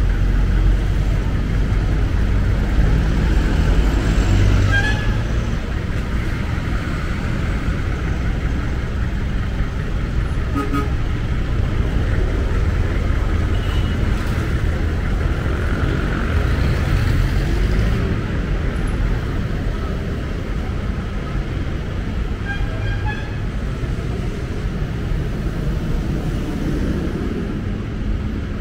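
Steady city street traffic: motor vehicle engines running with a continuous low rumble, and a few short horn sounds over it.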